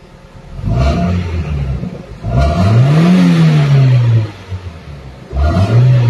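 Toyota Corolla 'Big Body' GLI four-cylinder engine revved three times from idle with quick throttle blips, the middle rev the longest and highest, dropping back to idle between them. It picks up and falls back cleanly, the misfiring and hard cold-starting cured by a new engine coolant temperature sensor.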